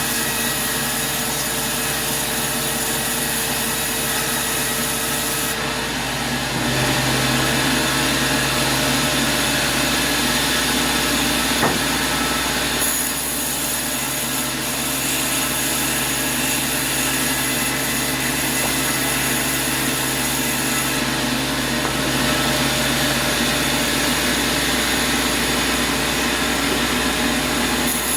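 A sawmill saw running and cutting through wood, a steady mechanical whirr with sawing noise. It grows louder about six and a half seconds in, as the cut takes load.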